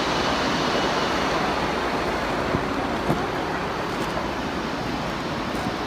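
Shallow stream water flowing, a steady even rushing noise.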